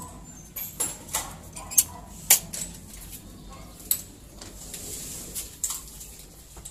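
Scattered sharp metallic clicks and light knocks, about half a dozen, the loudest a little over two seconds in, as aluminium sliding-door frame parts and hardware are handled.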